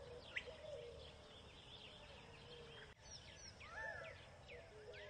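Faint birdsong ambience: scattered short chirps and whistles of small birds over a low, slightly wavering held tone, changing abruptly about three seconds in.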